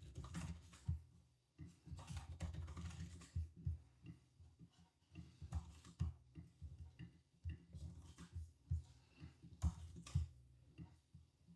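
Computer keyboard typing and mouse clicks: faint, irregular light clicks as values are entered and patches are edited in software.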